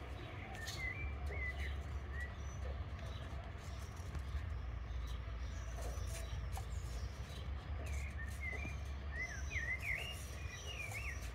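Small songbirds chirping in short, quick up-and-down twitters, a few near the start and a busier run in the last few seconds, over a low steady rumble.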